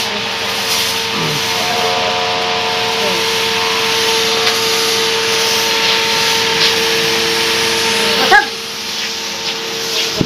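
Steady hiss and drone of a disinfectant fogging machine running, with a constant hum under the noise. The sound drops off sharply about eight and a half seconds in.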